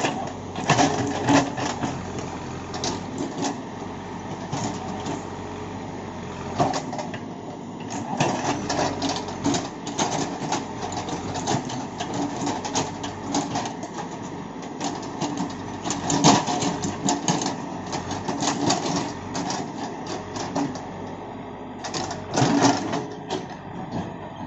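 Backhoe loader engine running steadily, with frequent irregular clanks and rattles throughout.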